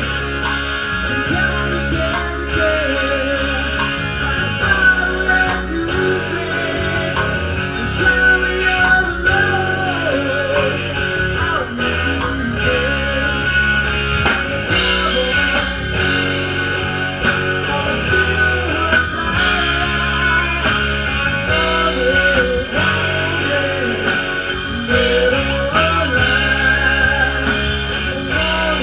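Live rock band playing a bluesy rock number: electric guitars, bass guitar and drum kit, with a wavering lead melody line over a steady beat.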